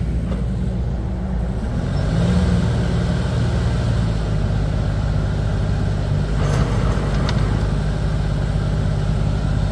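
Engine running steadily, powering a ridge-forming and plastic-mulch-laying machine under test. Its pitch rises about two seconds in, then holds steady.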